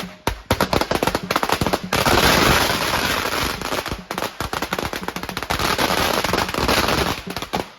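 Firecrackers going off in rapid cracks, merging into a dense barrage about two seconds in, then thinning back to separate pops toward the end.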